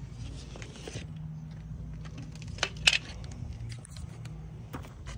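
Rustling and crackling of paper backing and tape being handled, with scattered small clicks and one sharp click about three seconds in.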